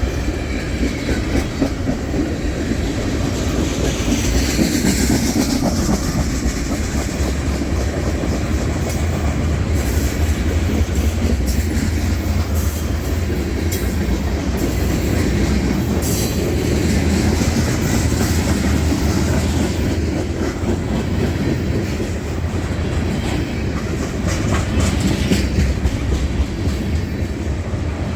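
Freight train cars rolling past at a steady speed, wheels clacking over the rail joints in a continuous, loud rumble.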